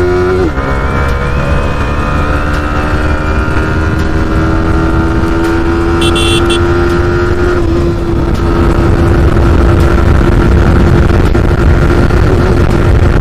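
Yamaha R15 V4's 155 cc single-cylinder engine pulling hard under acceleration, with a gear change about half a second in and the engine note then climbing slowly. Wind rushes louder over the microphone as speed builds in the second half. The engine runs on freshly changed Motul 7100 10W40 oil, which the rider feels has softened its humming and vibration.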